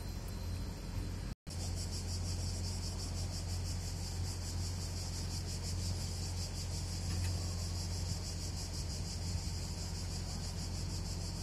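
Steady low hum of the yacht's engine running at low speed, under a loud, even buzzing of cicadas. There is a brief gap about a second and a half in.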